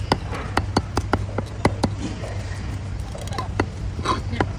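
Cleaver chopping fish on a thick wooden chopping block: a quick run of sharp knocks, about four a second, with a pause of about a second midway.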